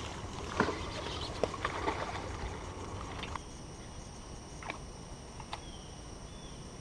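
Scattered light clicks and knocks from a bass angler casting and reeling a rod on a boat's front deck, over low steady outdoor background.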